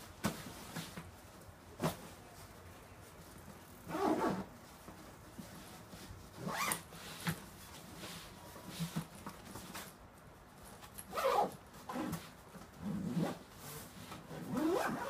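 Zip on a sailing duffel bag being pulled in about five short rasping strokes, with brief clicks and rustles of the bag's fabric as it is handled.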